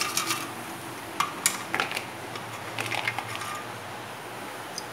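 Crisp air-fried pancetta pieces being tipped and scraped out of an air fryer basket into a bowl: scattered clinks and taps of a utensil and the pieces against the basket, in a few short clusters.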